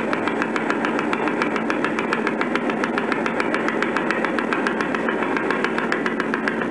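Fun2Learn boat kiddie ride's drive motor and rocking mechanism running: a steady mechanical hum with a fast, even clicking throughout.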